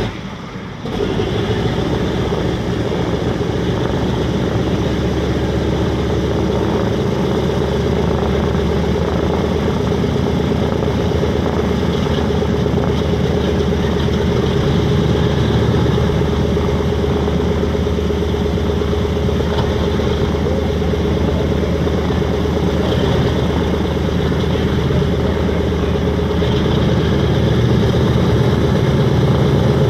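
A B-17G's Wright R-1820 nine-cylinder radial engines running steadily at low power after engine start. The sound steps up sharply about a second in and grows slightly louder near the end.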